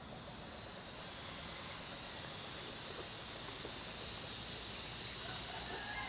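Steady, even hiss of outdoor background noise.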